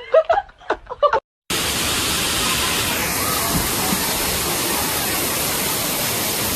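A voice laughing for about a second, then a short dead gap and a sudden cut to a loud, steady hiss of rushing noise that runs on without change.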